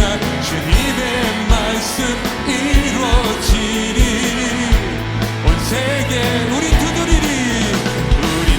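Live church worship band playing a praise song, with a steady kick-drum beat, bass, keys and guitar, and voices singing along.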